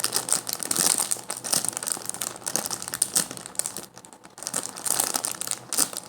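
Crinkling and rustling from handling a squishy toy, with a brief lull about four seconds in.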